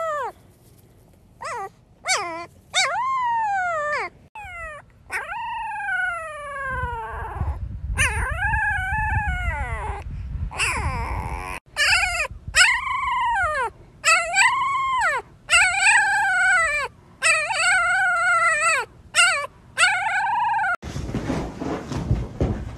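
Very young husky puppies howling in a string of short, high calls, about one a second, each rising and falling in pitch. Near the end the calls stop and a rustling noise follows.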